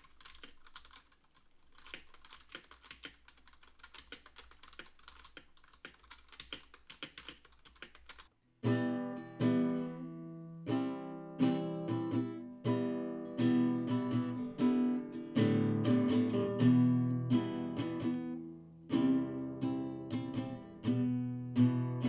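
Faint computer-keyboard typing, heard through a Redragon Seyfert GM100 budget USB microphone. A little over eight seconds in, the typing stops. After a brief gap, a classical acoustic guitar is strummed and plucked in chords, much louder, for the rest of the time.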